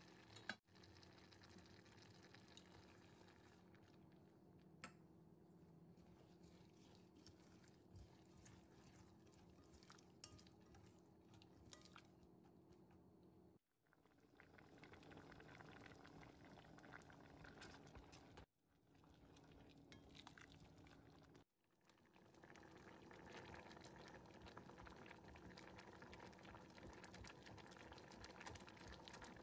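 Pot of red adzuki beans simmering, boiled soft for red bean paste: faint, steady bubbling with small pops. It cuts out briefly three times, and near the end a masher is worked into the beans.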